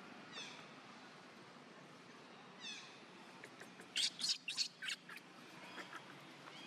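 High-pitched animal calls: two quick falling chirps, then a cluster of loud, shrill squeaks about four seconds in, followed by a few softer calls.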